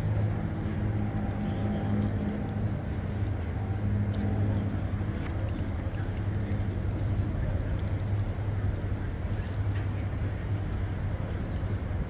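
Steady low hum of city traffic, with an engine running nearby.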